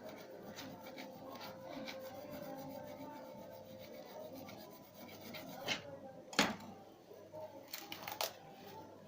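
Rubbing and scraping handling sounds, with a few sharp clicks; the loudest click comes about six and a half seconds in.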